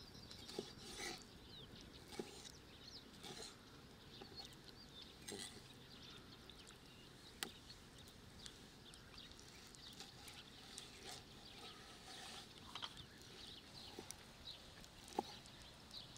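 Faint sounds of a knife slicing raw liver on a wooden cutting board, with soft, irregular knocks of the blade on the board every second or two. Faint high chirps come in and out behind them.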